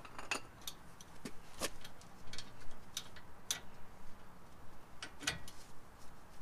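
Scattered sharp metal clicks and taps at uneven intervals from a socket wrench with a 13 mm socket being worked on a truck's front brake caliper bolt.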